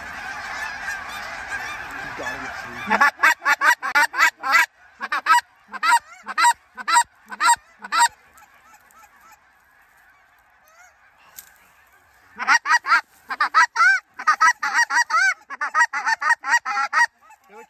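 A large flock of geese calling as a continuous din, broken by two runs of loud, quick honks close by, starting about three seconds in and again about twelve seconds in.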